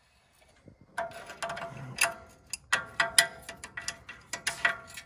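Adjustable wrench clicking and clinking against the loose ball joint nut on a Bullnose Ford F-150's front spindle as the nut is turned, rotating the caster/camber adjustment bushing. A rapid, irregular run of sharp metallic clicks starts about a second in.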